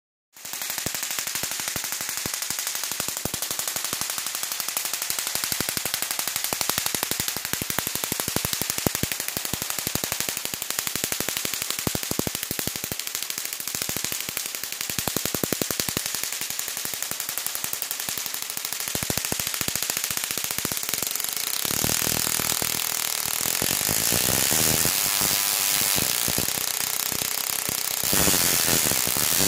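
12-volt-powered spark-gap Tesla coil running, a dense rapid crackle as its arcs strike out from the top to a rod held beside it. It grows louder and fuller about 22 seconds in and again near the end.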